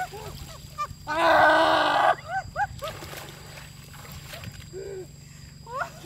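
A loud, roar-like cry lasting about a second, starting about a second in, with short chirping calls scattered before and after it.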